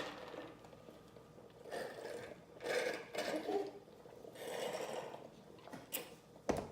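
Close-up chewing and lip-smacking: a series of short wet mouth sounds, about half a dozen, with a sharp smack near the end.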